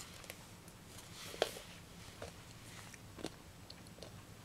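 A few sharp crunches of small hard Nerds candy pieces being bitten and chewed, the loudest about a second and a half in.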